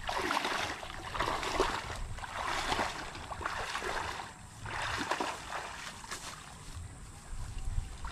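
Fishpond water sloshing and splashing in uneven strokes, roughly one a second, as someone works in the shallow pond clearing it out.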